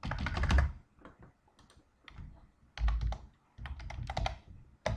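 Typing on a computer keyboard: a quick run of keystrokes at the start, a few scattered taps, then another fast run from about three seconds in.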